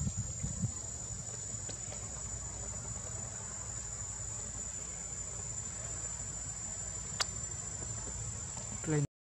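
Steady, high-pitched drone of insects, over a low rumble, with a single sharp click about seven seconds in; the sound cuts off abruptly just before the end.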